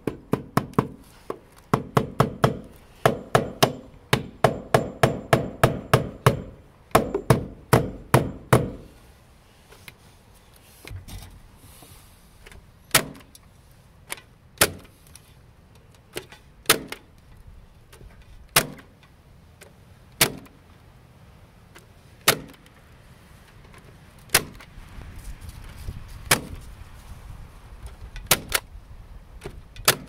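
Bostitch electric stapler firing staples through galvanized wire mesh into wood. A quick run of sharp snaps, about three a second, fills the first nine seconds, then single shots come about every two seconds.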